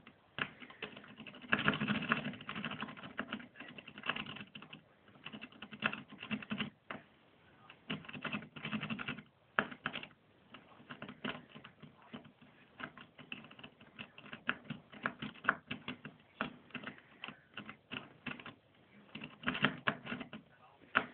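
A metal lock pick clicking and scratching against the pins inside an old Ford Granada's ignition lock barrel as it is picked: a fast, irregular run of light clicks, some stretches denser than others.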